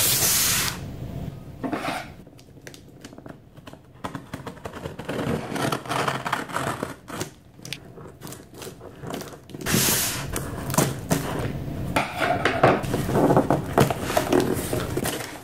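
Scissors cutting and scraping through packing tape on a cardboard shipping box, with the tape tearing. Then the cardboard flaps are pulled open with crackling and rustling. A loud rustle at the very start.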